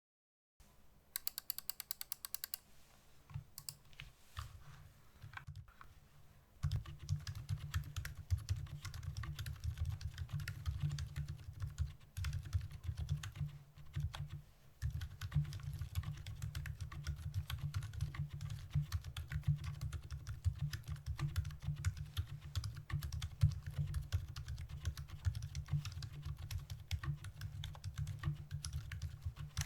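Typing on a Novelkeys NK65 mechanical keyboard fitted with stock, unlubed Gazzew Boba Pink silent linear switches, an aluminium plate and PBT keycaps. A quick run of evenly spaced presses comes about a second in, then scattered single presses, then steady fast typing from about seven seconds in with two short pauses.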